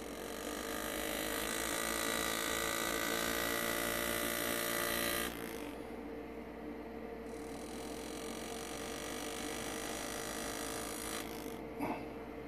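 Engraving handpiece buzzing steadily as the graver cuts into pewter. It runs for about five seconds, stops, then runs again for about four seconds, and a short knock follows near the end.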